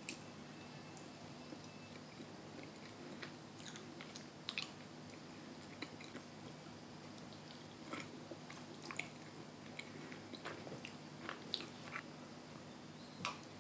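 Close-up mouth sounds of someone chewing a soft rice cake (sirutteok): faint wet smacks and clicks scattered through, over a steady low hum.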